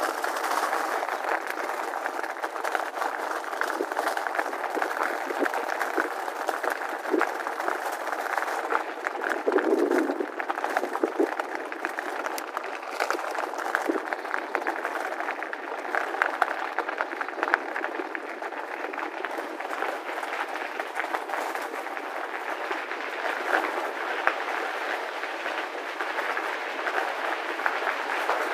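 Bicycle tyres rolling over loose gravel at riding speed: a steady crunching rush scattered with many small clicks and rattles.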